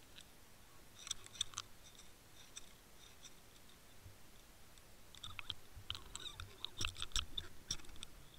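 Faint, scattered sharp clicks and ticks picked up underwater by a submerged camera over a low rumble: a short flurry about a second in, then a denser run from about five seconds on.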